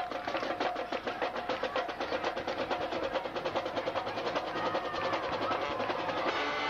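High school marching band playing. The drumline beats a fast, steady stream of strokes under held wind notes, and near the end the horns move into sustained chords.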